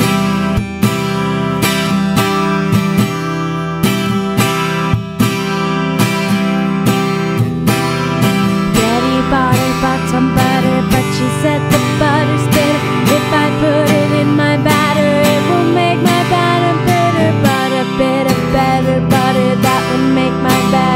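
Acoustic guitar strummed steadily, with a woman singing a nursery-rhyme melody over it from about nine seconds in.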